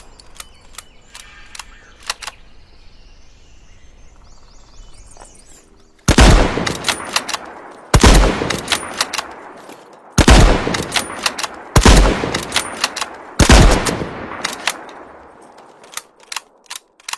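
Mosin-Nagant 1891/30 bolt-action rifle (7.62×54R) firing five single shots, each a loud crack followed by a long fading echo, spaced roughly two seconds apart. A few faint clicks come before the first shot, and a few more near the end.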